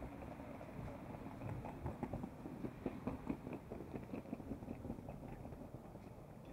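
Footsteps clicking on stone paving, over a steady low hum of city traffic and people, with a burst of irregular clattering knocks in the middle.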